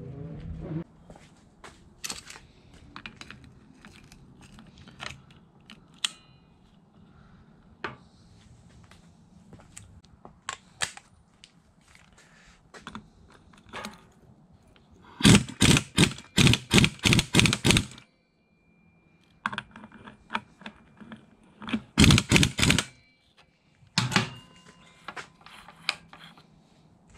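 Husky impact wrench hammering the clutch hub nut of a Yamaha YFZ450R engine tight, in two loud bursts: about three seconds past the middle, then a shorter burst near the end. Light clicks and knocks of parts and tools being handled come before them.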